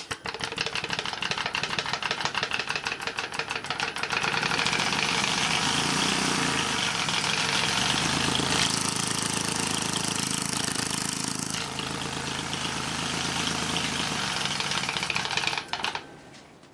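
An HVAC scroll compressor running open with its shell removed and the top scroll unclamped. It runs with a rapid, even knocking at first; about four seconds in it turns to a louder, steady rushing noise. The sound drops away near the end.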